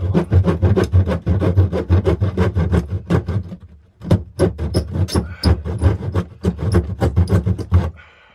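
Saw cutting through PVC drain pipe in fast, rhythmic rasping strokes, about five or six a second, pausing briefly about four seconds in, then cutting again and stopping near the end.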